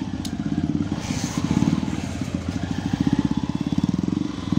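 Motorcycle engine running through a loud modified exhaust while riding, its rapid firing pulses swelling and easing as the throttle is opened and closed.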